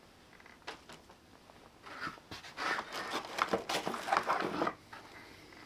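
Rustling and scraping of a mouse pad being handled, in a busy run of irregular strokes starting about two seconds in and stopping abruptly near the end, with a few faint handling sounds before it.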